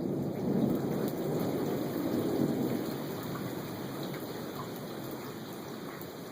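Heavy rain falling steadily, with a low rumble of thunder that fades away over the first few seconds.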